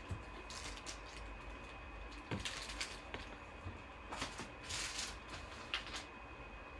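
Trading cards and their plastic holders being handled and sorted: soft rustles and slides with scattered light clicks, in a few short bursts.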